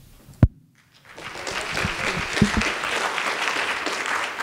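A single sharp thump about half a second in, then from about a second in an audience clapping steadily.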